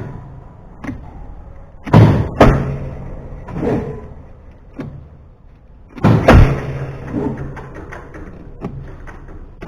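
A series of heavy thumps and bangs at irregular intervals, the loudest two pairs about two seconds and six seconds in, some leaving a short low ring.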